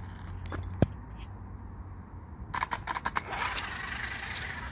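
Handling noise from an electric RC car and its gear: a sharp click about a second in, a quick run of clicks and light rattles a little past halfway, then a steady hiss sets in.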